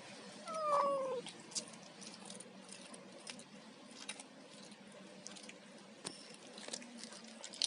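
A cat gives one short meow that falls in pitch about half a second in, followed by faint, scattered small clicks.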